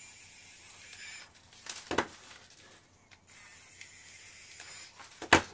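3D pen's small extruder motor whirring as it pushes molten plastic into a hole in a 3D-printed part, in two stretches. A sharp click follows each stretch, the second one the loudest sound.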